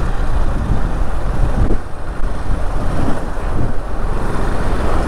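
Motorcycle running at riding speed, with road noise and a heavy low rumble of wind on the microphone.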